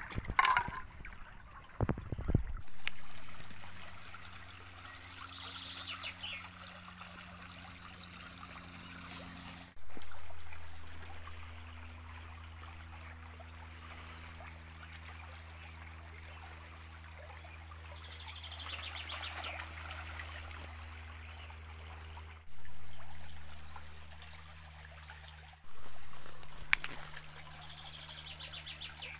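Shallow stream water trickling over stones, with a few brief bird calls.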